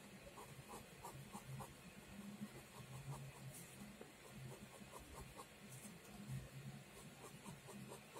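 Faint scratching of a pen drawing short strokes on paper.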